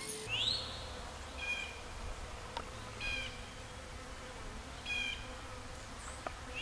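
Steady buzzing hum of a honeybee swarm clustered on a tree trunk, with a bird chirping several times over it.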